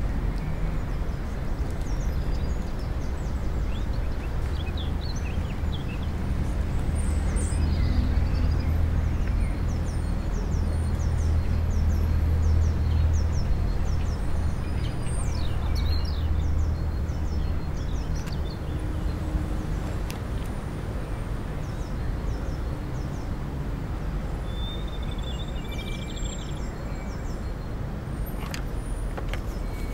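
Outdoor park ambience: a steady low rumble like distant traffic, swelling a little near the middle, with short high bird chirps scattered over it.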